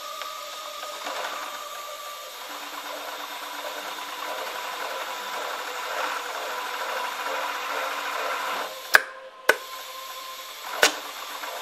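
Global 63900CH single-needle cylinder-bed lockstitch industrial sewing machine stitching denim in a fast, even rhythm from a couple of seconds in. Near the end the stitching stops and three sharp clacks come from the machine's mechanism.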